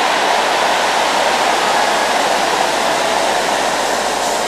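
A huge congregation cheering and shouting in response to a prophetic declaration, a steady dense roar.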